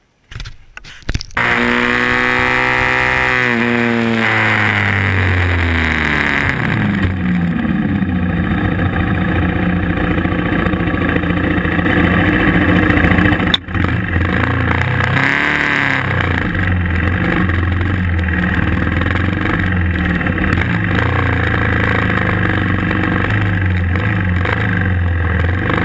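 Dual-sport motorcycle engine running while being ridden. Its pitch falls and rises with the throttle and gear changes. There are a few knocks in the first second, and a sudden break about 13 seconds in.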